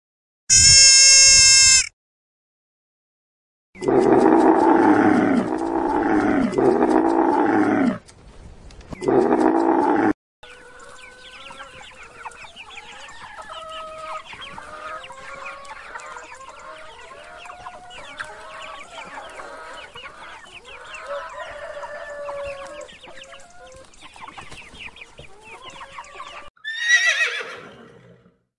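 Chickens: after a short bleat and a pause, a few loud drawn-out calls, then about sixteen seconds of softer, busy clucking. Near the end a horse whinnies with a falling call.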